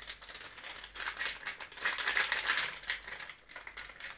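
Plastic propeller packaging crinkling and rustling in irregular crackles while it is handled and opened to take out a 7-inch propeller, busiest in the middle.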